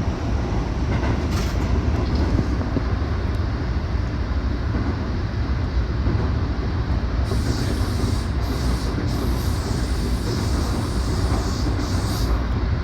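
Keikyū electric train running, heard from on board: a steady low rumble of wheels and running gear. From about seven seconds in, short bursts of high hiss come and go over it.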